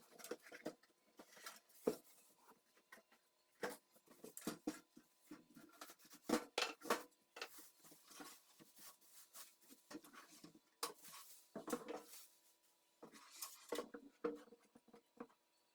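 Irregular light clicks, taps and scrapes of computer parts being handled during a PC build, over a faint steady hum.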